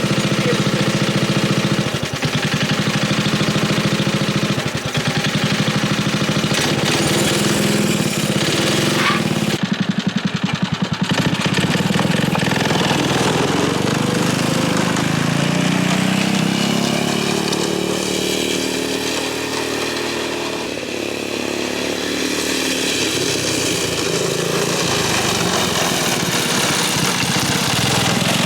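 Tecumseh H35 single-cylinder four-stroke engine running, with its carburettor being adjusted. About ten seconds in it drops to a slow, uneven beat of separate firing pulses, then picks up again, and later its speed rises slowly and falls back.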